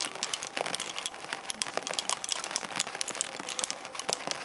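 Wooden lace bobbins clicking against one another as pairs are crossed and twisted in bobbin-lace making: a quick, irregular clatter of light clicks.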